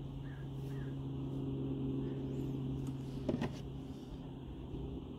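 A brief cluster of small clicks about three seconds in, as a V-shaped replacement blade is fitted into a grafting pruner's head, over a steady low background hum.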